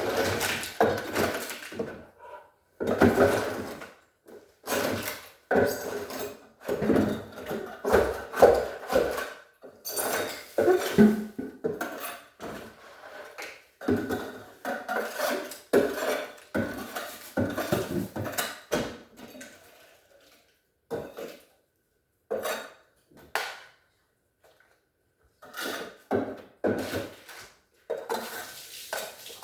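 Irregular clattering and knocking of hard objects, like chunks of ice and plastic freezer parts being handled and knocked loose while built-up ice is cleared from a refrigerator freezer. It eases to a few scattered knocks about 20 seconds in, then picks up again near the end.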